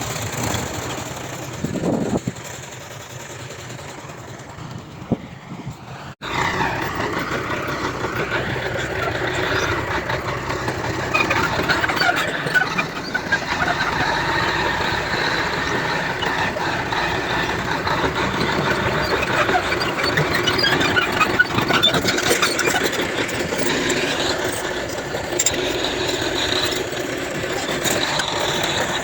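Heavy earthmoving machinery working: an engine running steadily with scattered metallic squeaks and clanks. The sound is quieter at first, then jumps louder at a sudden cut about six seconds in.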